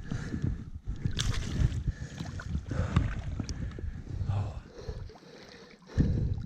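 Irregular splashing and knocking close to the microphone, as a trout is handled in a landing net in shallow river water. A louder burst comes near the end.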